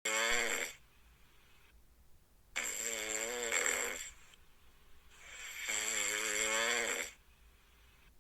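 A cat snoring: a pitched, buzzy snore cuts off just after the start, then two longer snores follow, each about one and a half seconds, with quiet breaths between.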